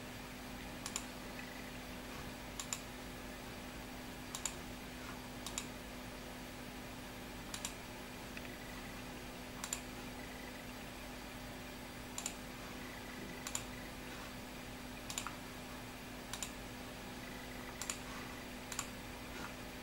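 Computer mouse buttons clicking: short, sharp single clicks and some quick double-clicks at uneven intervals, about one every second or two, over a steady low hum.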